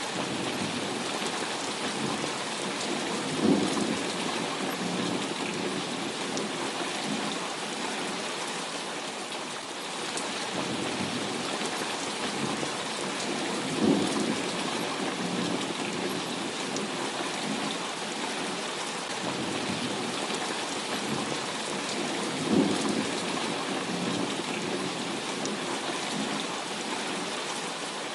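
Heavy rain falling steadily, with three rumbles of thunder, about 3.5, 14 and 22 seconds in, each breaking sharply and rolling away over a couple of seconds.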